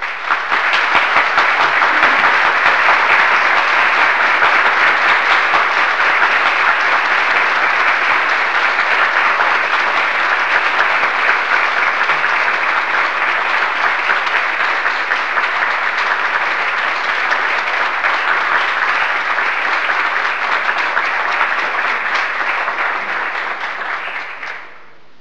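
Large crowd applauding: dense, steady clapping from many hands that eases a little toward the end and fades out in the last second or so.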